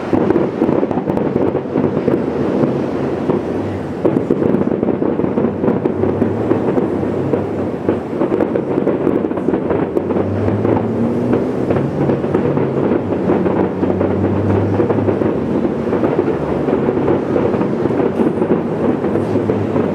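Fireworks finale heard from afar: many shells bursting in quick succession, their booms and crackle running together into a continuous rolling rumble, like thunder.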